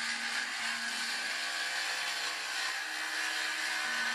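Ryobi cordless circular saw cutting through a pine board, running at a steady pitch as the blade moves along the cut.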